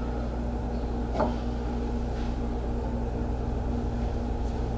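Steady background hum and hiss of the room, like air conditioning, with a brief faint squeak about a second in.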